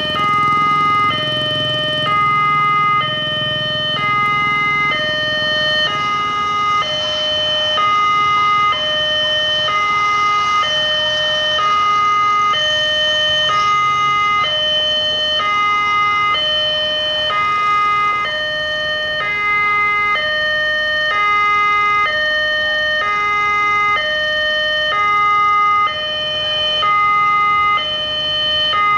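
Railway level-crossing warning alarm, an electronic two-tone signal alternating about once a second, steady and loud. It signals that the crossing is closing for an approaching train.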